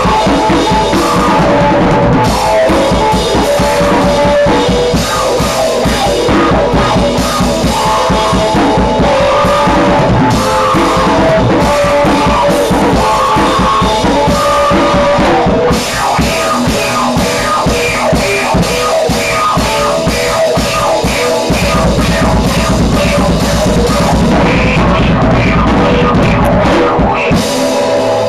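A rock band playing live: a drum kit with fast, busy beats and cymbals over electric guitar. The low end gets heavier for a few seconds about three-quarters of the way through.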